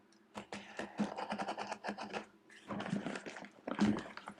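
Quick, irregular clicks, taps and scrapes of small tools and parts being handled while a tablet is opened up for repair, over a faint steady low hum.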